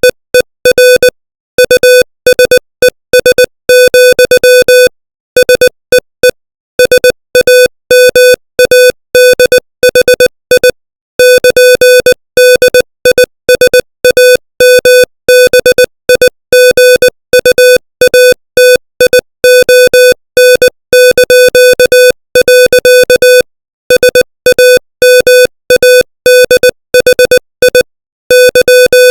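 Morse code at 20 words per minute: a single steady mid-pitched tone keyed on and off in short dits and longer dahs, with short gaps between letters and longer pauses between words, spelling out text.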